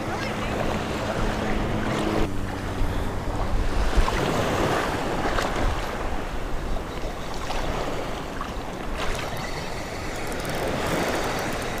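Wind buffeting the microphone over the wash of small waves in shallow surf: a steady rushing noise, heaviest in the low end, with a few faint clicks.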